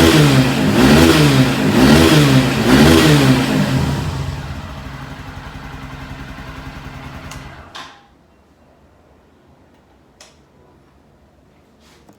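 Haojue DK 160 motorcycle engine and exhaust revved in quick blips about once a second, then settling to a steady idle and shutting off about eight seconds in. Two faint clicks follow.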